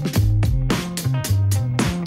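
Background music with a steady drum beat and a moving bass line.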